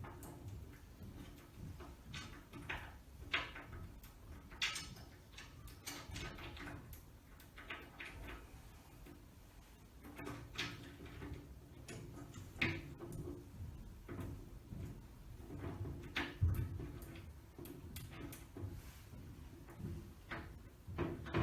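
Scattered light clicks and knocks at irregular intervals, with one heavier low thump near the end: small roller and seal hardware being handled and fitted onto the top edge of a glass sliding shower door panel.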